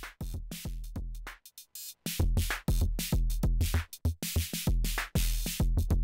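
Arturia DrumBrute drum machine playing a beat with a deep kick, run through a passive germanium-diode clipping box: the signal is clipped and drops in level because the circuit has no amplification. The beat breaks off briefly about a second and a half in.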